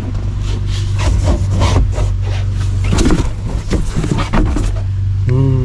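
A new package tray board scraping and bumping against the car's rear interior trim as it is forced up into place, a run of irregular scrapes and knocks; the tray is too big for the opening and binds.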